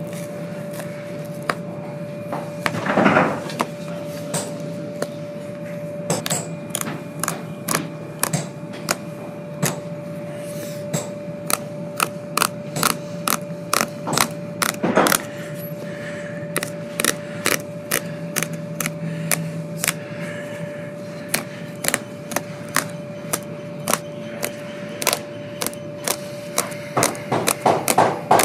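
Many sharp, irregular clicks and snaps of a pointed hand tool picking and cutting through the old welt stitching of a leather boot as the worn sole is stripped off, with two longer scraping rasps about 3 and 15 seconds in. A steady hum runs underneath.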